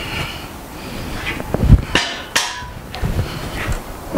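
Several sharp metal knocks and clanks, the loudest about two seconds in, one followed by a short ring, as the air compressor and its steel stand are handled.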